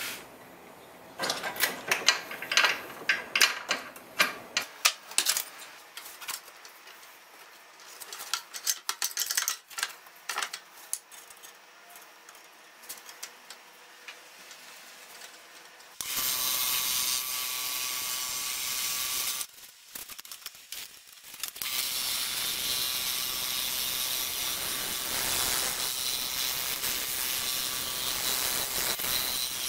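Light metal clicks and taps as a scroll saw blade is threaded through the next starting hole and clamped back in for an interior cut. About halfway through, the scroll saw starts suddenly with a steady buzz as the reciprocating blade cuts the wood. It drops off for a couple of seconds, then runs on steadily.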